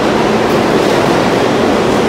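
New York City subway train of R160 cars running past the platform at speed: a loud, steady rumble of steel wheels on rail.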